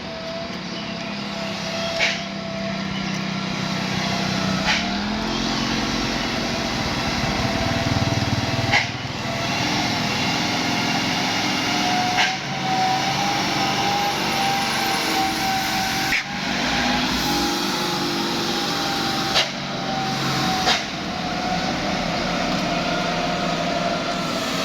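Heavy bus engine running on the road, a steady drone with a high whine that drifts slightly in pitch and lower engine tones rising a few times. Sharp brief clicks come every few seconds.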